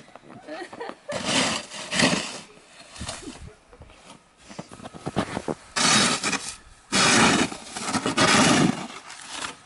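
A broom sweeping snow: several long, noisy swishing strokes, the loudest ones coming back to back near the end.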